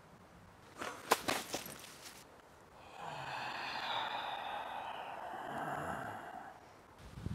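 A few sharp clicks about a second in, then a long, raspy breath-like exhale lasting about three and a half seconds that fades out near the end.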